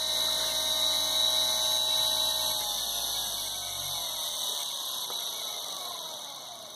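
Razor E300's 24 V 250 W DC scooter motor running quietly at its top speed of about 3,500 RPM with a steady whine. About two and a half seconds in, it starts to wind down, the pitch falling and the sound fading, as the PWM speed controller knob is turned down.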